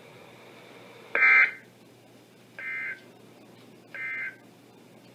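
Three short bursts of NOAA Weather Radio EAS SAME digital data, the end-of-message code that closes a warning, each a fraction of a second of buzzy warbling tone, about a second and a half apart, with the first the loudest.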